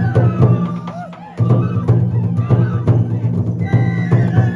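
Traditional Japanese lion-dance (shishi-mai) festival music: regular drum strokes under a high held and gliding melody. The music thins briefly about a second in, then comes back at full strength.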